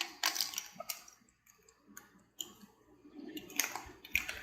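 Scattered light clicks and taps from a plastic showerhead and its parts being handled.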